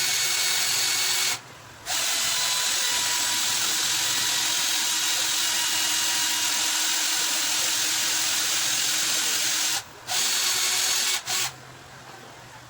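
Power drill running at steady speed in bursts: a short run, a long run of about eight seconds, then a shorter run and a quick blip before it stops.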